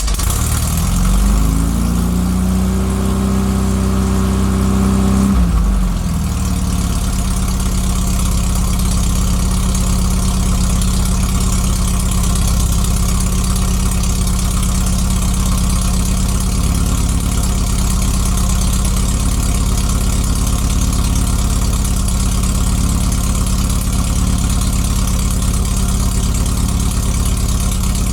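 Air-cooled Volkswagen flat-four engine of a 1969 Karmann Ghia coming to life. Its pitch rises and holds at a fast run for about five seconds, then drops and settles into a steady idle. The valves have just been adjusted and the head bolts retorqued.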